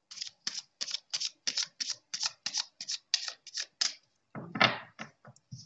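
A tarot deck being shuffled by hand: a quick, even run of short card strokes, about three a second, then a longer, louder rustle of the cards about four and a half seconds in.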